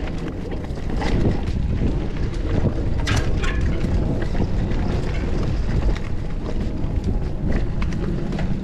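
Wind buffeting the action-camera microphone while a mountain bike rolls over a rocky trail, with a dense low rumble and frequent short knocks and rattles from the bike; one sharper rattle comes about three seconds in.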